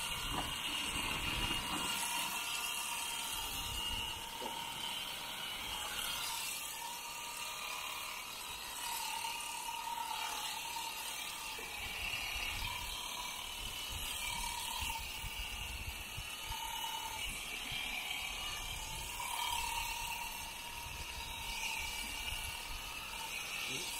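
Electric shearing handpiece running steadily as it cuts alpaca fleece from the neck and head, its whine changing in short stretches as the blades bite into the wool.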